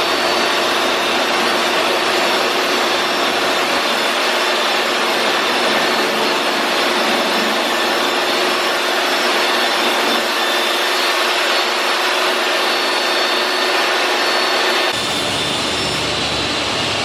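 A motor-driven machine running steadily, a constant hum with a broad rushing noise; its tone shifts slightly about two seconds before the end.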